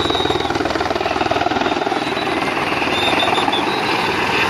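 Helicopter coming in to land close by, its rotor blades beating in a rapid, steady chop.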